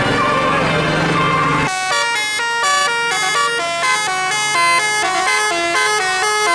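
A tour bus's multi-tone 'telolet' horn playing a quick stepping melody of clear horn notes, starting about a second and a half in.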